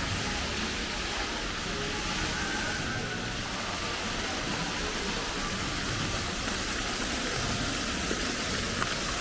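Steady rush of water from a plaza fountain's jets.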